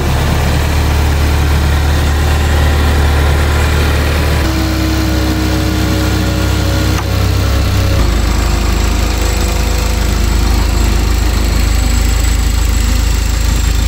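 Audi S1's 2.0 TFSI turbo four-cylinder engine idling steadily, its note shifting slightly about four and a half and eight seconds in. Over the idle is a noise from a pipe faintly rubbing on the auxiliary drive belt.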